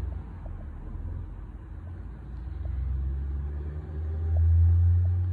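A low rumble that swells to its loudest near the end.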